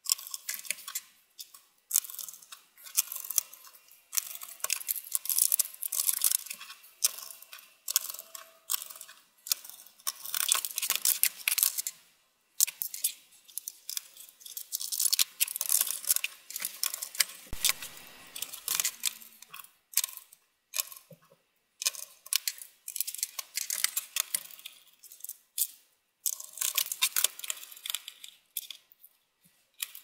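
Phillips screwdriver turning screws into an HP Notebook 15 laptop's bottom case, with quick ratchety clicks and scraping as screws seat and the case panels are pressed and snapped back together.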